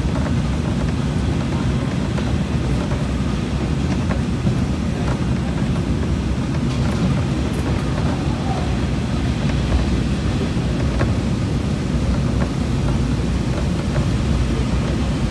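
KiHa 40 series diesel railcar running, heard inside the passenger cabin: a steady low rumble of engine and wheels on the rails, with a few faint clicks.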